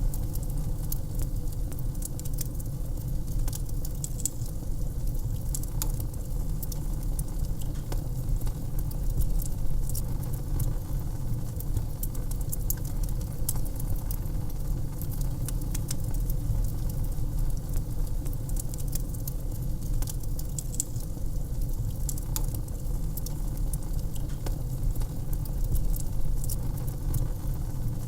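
Wood fire in a fireplace crackling: many small sharp pops and snaps at irregular intervals over a steady low rumble.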